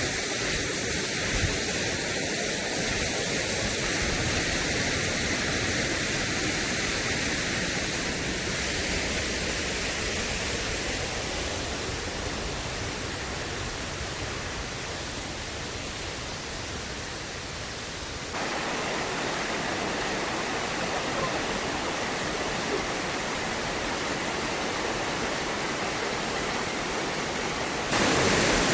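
Waterfall crashing into its pool: a steady, even rushing hiss with no distinct events. Its loudness shifts abruptly about two-thirds of the way through and again near the end.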